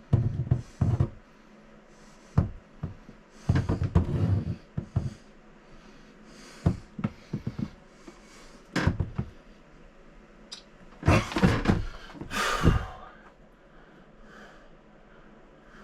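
Irregular knocks, thuds and clatter of hands working on the plumbing behind a toilet in a cramped bathroom, with the worker's breathing, the busiest stretch about eleven to thirteen seconds in.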